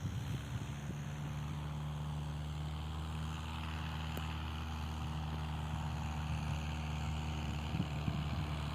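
A steady low motor hum with a hiss above it.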